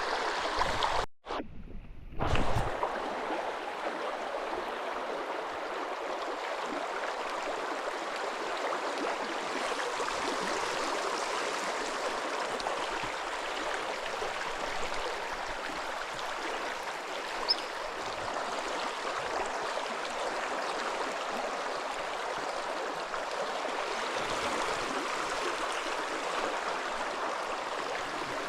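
Steady rush of flowing stream water. It is broken by a short dropout and a couple of louder knocks about a second or two in, with one faint click later.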